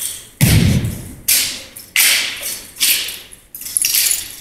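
An exhibition drill team's sharp, rhythmic slaps and stomps, about six in all, roughly one a second, each fading with a short echo. The first, about half a second in, has a heavy low thud like a foot stomp.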